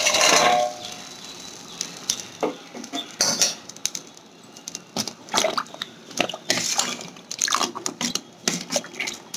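A steel plate clattering against the rim of a steel bowl as fried urad dal vadas slide off it and drop into curd, with a brief metallic ring at the start. In the second half a steel ladle clinks and scrapes against the bowl again and again as the vadas are pressed into the curd.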